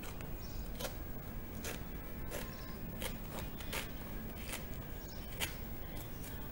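Scissors snipping through a sneaker's suede upper, a string of short, sharp cuts a little under a second apart.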